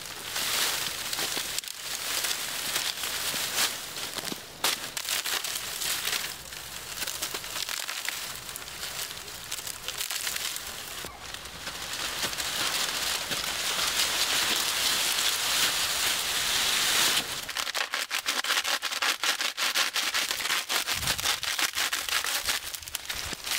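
Dry reed stalks rustling and crackling as armfuls are handled and pushed into a reed shelter. There is a steadier rustle in the middle, then dense rapid crackling.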